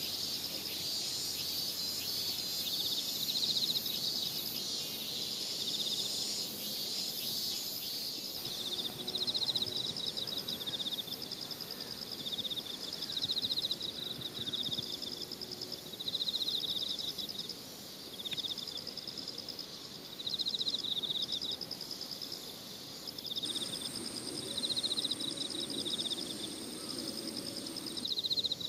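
Insects chirping outdoors in rapid pulsed trills, one trill after another. A steady high-pitched whine joins for a few seconds near the end.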